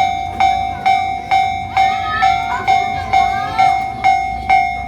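Railway level crossing warning bell ringing steadily, a bit over two evenly spaced dings a second, each ring fading before the next: the crossing's alarm going off.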